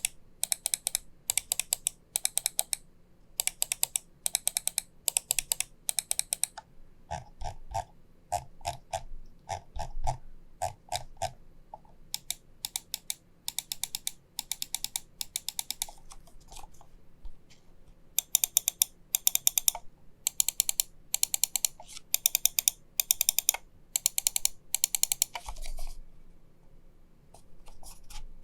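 Zaopin Z2 gaming mouse buttons clicked repeatedly in quick runs of several crisp clicks each. A stretch in the middle has duller, deeper-sounding clicks, a different button or switch being pressed.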